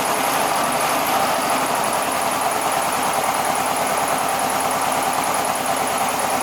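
1967 VW Beetle's air-cooled flat-four engine idling steadily on its freshly rebuilt Solex 34 carburetor.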